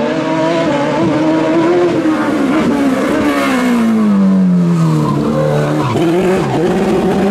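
OMS 2000M single-seater race car's engine at high revs; the pitch sinks steadily as the car slows for a hairpin, then climbs again as it accelerates past and away.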